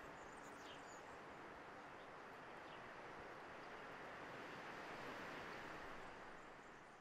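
Faint outdoor ambience: a steady rushing hiss with a few faint high chirps, fading out near the end.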